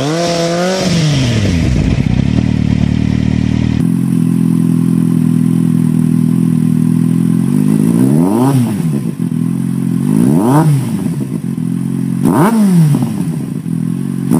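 Kawasaki Z750 inline-four through aftermarket exhausts. First, an SC Project Short Oval silencer comes down off a rev and settles to idle. Then a G&G GP exhaust with its dB-killer removed idles steadily and is blipped three times, in short quick revs about two seconds apart.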